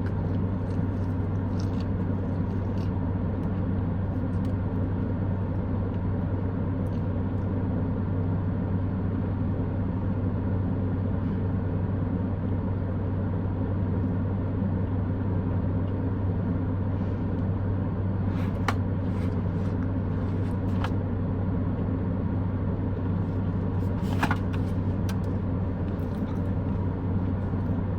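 Steady low rumble and hum of a car's cabin with the engine running, with a couple of faint clicks about two-thirds of the way through.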